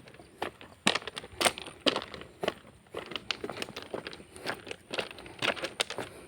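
Footsteps crunching unevenly, about two steps a second.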